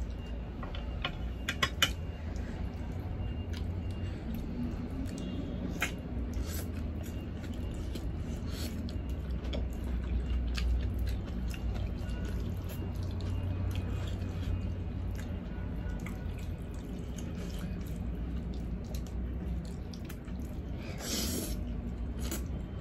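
Close-up eating sounds: wet chewing and scattered lip-smacking clicks from people biting and chewing fatty braised pork hock with rice, over a steady low hum. A louder, brief smacking sound comes near the end.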